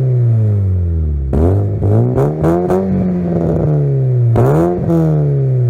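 Exhaust of a SEAT Cordoba's 1.6 AFT four-cylinder petrol engine, revved up twice and let fall back each time, with short sharp snaps as the throttle opens.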